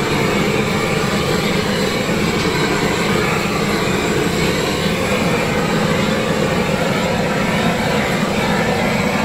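Handheld gas blowtorch running with a steady, unbroken rush of flame over food on a grill.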